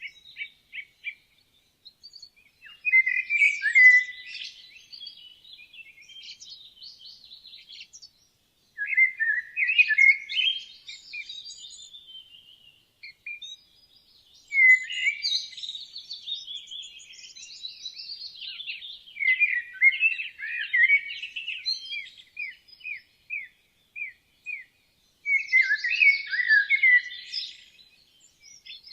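Woodland songbirds singing: several separate song phrases a few seconds apart, with runs of quick repeated chirping notes.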